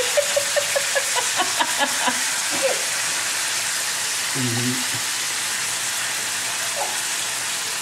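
Beef chunks sizzling as they fry in a hot wok, a steady hiss. There is a quick run of light clicks in the first few seconds while the pieces are turned over one by one.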